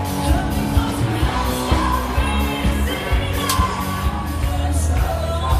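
A live party cover band playing a pop-rock song over a PA: electric guitars, bass and a steady drum beat, with a lead vocal singing over it.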